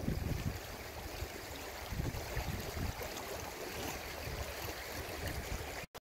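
Shallow river running over rocks: a steady rush of flowing water with irregular low rumbles. The sound drops out abruptly near the end.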